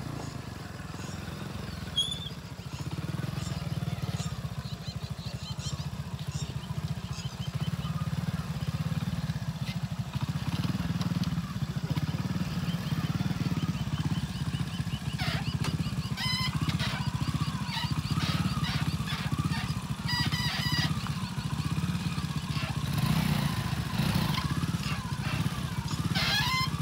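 Small single-cylinder four-stroke motorcycle engine running steadily at low revs as the bike is ridden slowly over rough dirt ground, with faint high chirps and clicks now and then.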